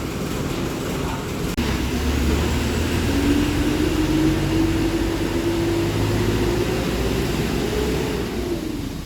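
A motor vehicle's engine running with a low rumble that builds after about a second and a half. Its pitch rises slightly, then falls off near the end.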